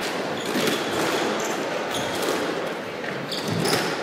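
A squash rally: the ball cracking off the rackets and walls several times, with sneakers squeaking in short high chirps on the wooden court floor.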